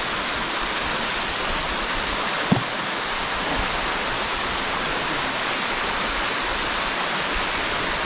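Waterfall of many thin streams falling over a moss-covered rock face into a deep pool: a steady, even rush of falling water. A single brief knock sounds about two and a half seconds in.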